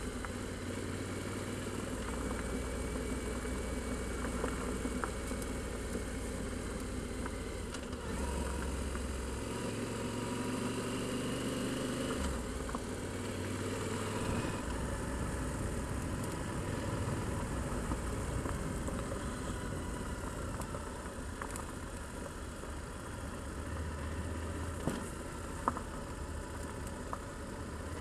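Motorcycle engine running as the bike rides along a gravel track, with steady road and wind noise over it. The engine note shifts several times as the throttle changes, and two sharp ticks come near the end.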